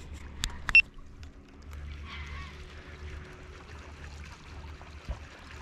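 Quiet fishing-tackle and boat handling sounds: two sharp clicks under a second in, the second loud with a brief metallic ring, over a steady low hum and light water noise, with a faint knock near the end.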